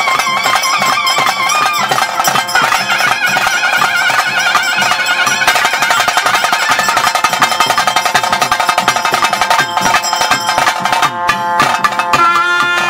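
Traditional ritual music: a reedy wind instrument plays a wavering melody over fast drums and percussion, with a change in the music near the end.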